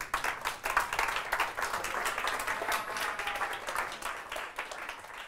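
Audience applauding: many people clapping at once, starting suddenly and easing off near the end.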